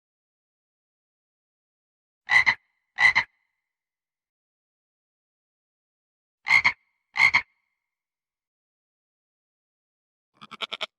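An animal's short, sharp calls in two pairs about four seconds apart, the two calls of each pair under a second apart; near the end a quick run of about five pulses.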